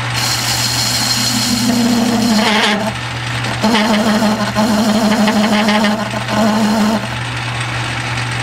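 Metal lathe running while a 3/8-inch-wide high-speed steel radius tool plunge-cuts into a turning metal bar: a steady motor hum under a hissing cut. The cut comes and goes with a pitched ringing chatter, which the machinist puts down to the wide radius tool.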